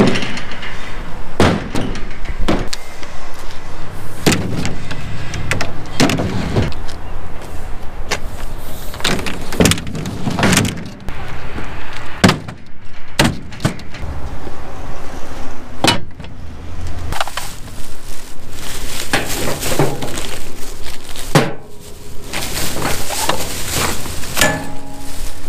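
Building materials (a wooden post, lengths of PVC conduit, coils of wire) being loaded into a wooden-sided utility trailer: repeated knocks and clattering thumps at irregular intervals, over a steady low rumble.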